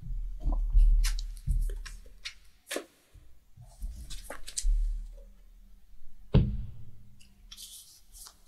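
Trading cards being handled on a cloth playmat: scattered soft taps and brushing as cards are slid, picked up and set down, with one sharper tap about six and a half seconds in.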